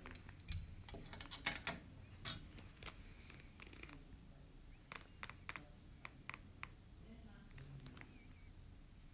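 Metal dental instruments clicking and clattering against a metal instrument cassette as one is taken out of its holder: a quick run of sharp clicks in the first two seconds or so, then a few lighter ticks between about five and seven seconds.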